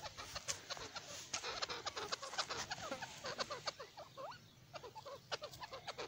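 Grey francolin giving many soft, quick clucks and short chirps.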